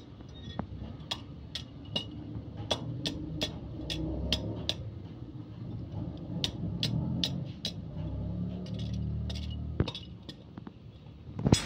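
Freshly cast copper bolt blanks clinking as they are broken off their casting tree with pliers and tongs and land among the loose pieces: many scattered sharp metal clicks, with one louder knock near the end. A steady low hum runs underneath.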